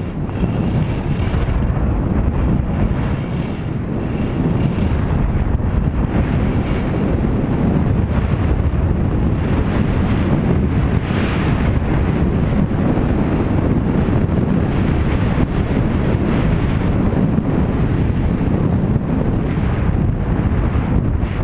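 Wind buffeting the microphone of a camera carried by a skier going fast downhill: a steady, loud low rumble, with a brief hissing swell about eleven seconds in.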